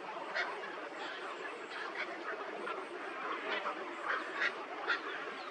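A dense chorus of many birds: short, sharp calls at irregular intervals over a continuous chattering hubbub.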